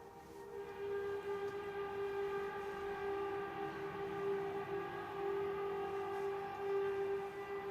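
Unexplained sustained droning, horn-like tone holding one steady pitch with several overtones above it, wavering slightly in loudness. This is the kind of sound reported as 'sky trumpets' or a mystery hum.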